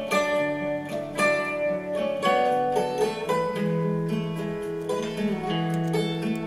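Background music of plucked guitar notes playing a melody.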